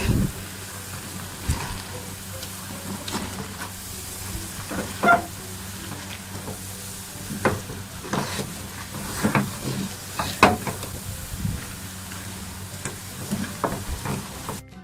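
A spatula stirring thick, oily rice-flour dough in a hot pan: irregular scrapes and knocks against the pan over a low sizzle, with a steady low hum underneath.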